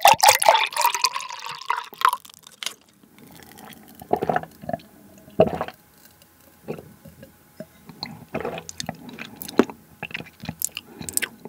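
Pear juice poured from a plastic bottle into a glass for about two seconds. Then quieter gulps and swallows, a few seconds apart, as the juice is drunk.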